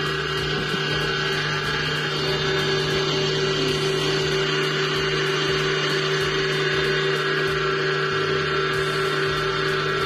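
Electric stand mixer running at a steady speed, its motor giving an even hum and whine as the beater mixes cake batter in a stainless steel bowl.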